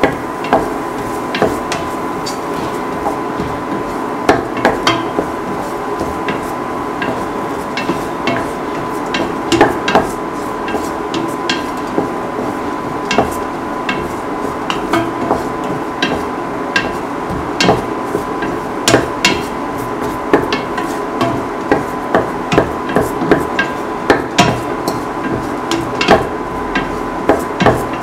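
A spatula knocking and scraping against a stainless steel pan while onions and shallots are stirred and sautéed, in irregular clatters a few times a second, over a steady high hum.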